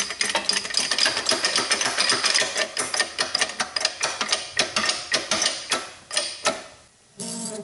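Hydraulic shop press being pumped by hand as it presses a shim onto a tractor steering worm shaft: a quick, irregular run of metallic clicks and ticks that dies away about six and a half seconds in.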